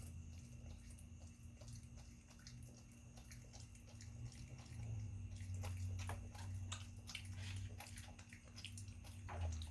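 A raccoon dabbling in a shallow pool of water, with faint splashing and dripping and scattered small clicks throughout.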